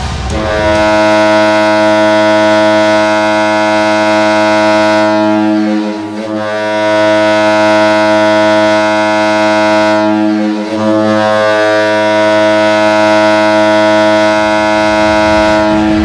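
Toledo Walleye's arena goal horn sounding three long, deep blasts with brief breaks between them, the first about six seconds long.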